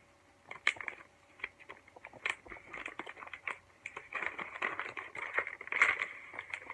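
Packaging being unwrapped by hand: scattered crackles and clicks, turning into denser crinkling and rustling about four seconds in.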